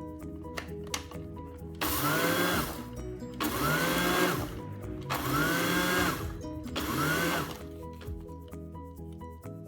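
Small electric blender run in four short pulses, its motor whirring up to speed and winding down each time. It is most likely grinding toasted black sesame seeds.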